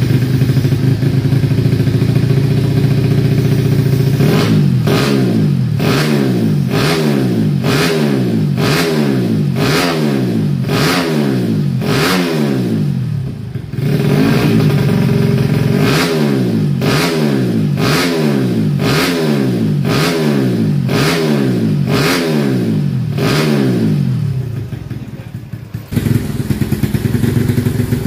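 Modified four-stroke single-cylinder motorcycle engine (Honda Revo bored out to 150cc, PWK 28 carburettor) on a programmable CDI, idling and then revved in quick repeated throttle blips, over a dozen in a row, about one and a half a second, with a short break midway, while the ignition map is tested. Near the end the revving dies down and a steady engine idle follows.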